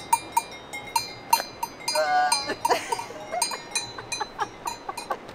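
Cowbell on a cow's collar clanking in quick, uneven strikes, several a second, as the cow moves its head while being scratched. About two seconds in, a brief voice-like sound rises over the clanking.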